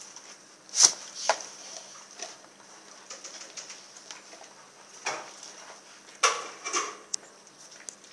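A Rottweiler chewing on a raw, frozen whole turkey: irregular crunches and cracks of teeth on meat and bone, the sharpest about a second in and another cluster between five and seven seconds in.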